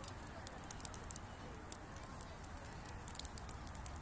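Light rain outdoors: scattered faint high ticks of raindrops over a low steady rumble.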